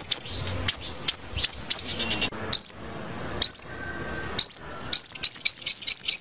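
Sunbird song: a loud string of high, sharp chirps, spaced out in the middle and running fast together near the end.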